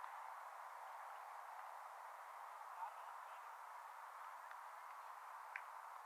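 Faint steady background hiss, with two faint clicks about three and five and a half seconds in.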